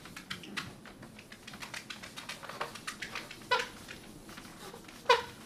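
Many light clicks and taps in quick succession, with two short, louder sounds that fall in pitch, one about three and a half seconds in and one near the end.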